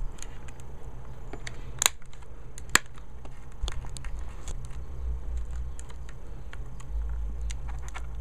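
Clear plastic blister pack crinkling and clicking as it is pried open by hand, with two sharper snaps about a second apart, near two and three seconds in.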